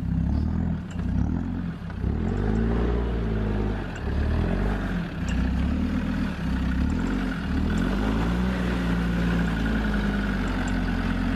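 Land Rover Discovery's engine revving up and down as the 4x4 climbs over rock ledges, its pitch rising and falling repeatedly with the throttle.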